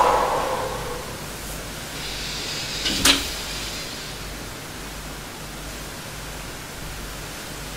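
Quiet room noise while a person does a Pilates floor exercise on a mat, with a breathy exhale about two seconds in and then one sharp tap just after three seconds, as a hand or arm meets the floor.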